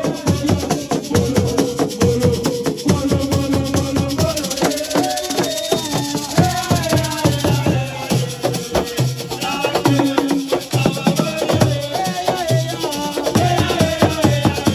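Assiko music: a sung melody over dense, fast rattling percussion and drums.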